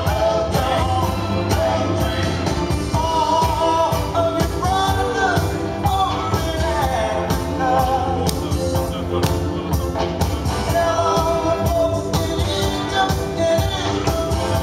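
Loud funk-style dance music from a DJ, with a singing voice over a steady beat.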